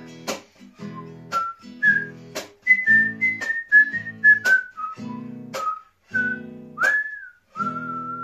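A man whistling a stepwise tune over strummed chords on a nylon-string classical guitar, ending on a held note.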